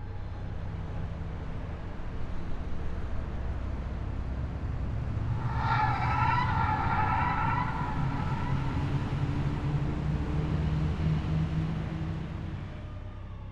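A motor vehicle passing by: a low engine rumble and road noise swell and fade, with a brief wavering high-pitched tone like a siren about six seconds in.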